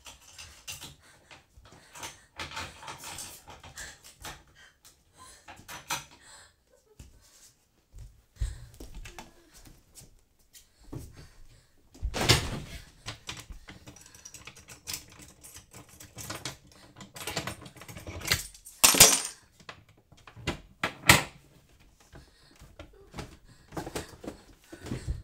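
Handling sounds of someone searching a small room: irregular clicks, knocks and rattles of a door fitting, wardrobe and drawer being tried and opened. The loudest knocks come about twelve, nineteen and twenty-one seconds in.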